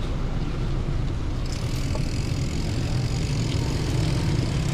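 Steady wind and road noise from riding a mountain bike along a road, with a rumble low down; a higher hiss joins about one and a half seconds in.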